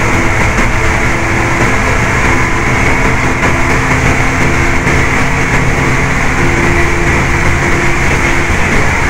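Coach bus at highway speed heard from inside the cab: a loud, steady engine drone mixed with road and wind noise.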